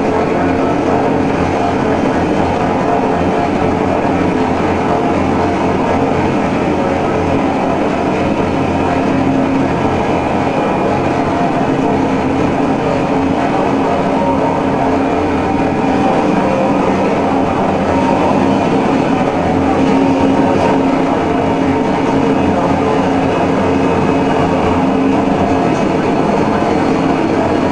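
Live electronic drone-noise music played from a laptop: a dense, unbroken wall of sustained tones over a low rumble, holding at one loud level throughout.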